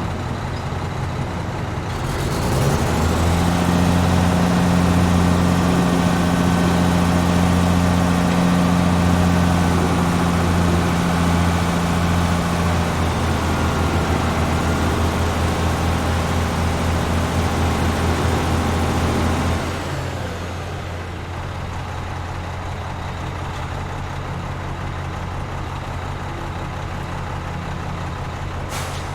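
Cement mixer truck's diesel engine idling, then running faster and louder from about two seconds in with a broad rushing noise over it. About twenty seconds in it drops back to a steady idle.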